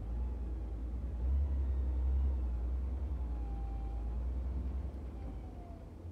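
Daewoo excavator's diesel engine running with a deep, steady rumble that grows louder for about a second near the start as the machine works. A faint whine wavers in pitch over the rumble as the boom swings and lowers the bucket.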